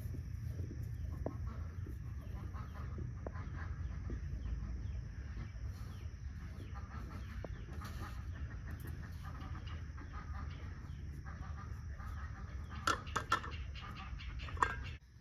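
Chickens clucking, with a cluster of sharper, louder calls near the end, over a steady low rumble.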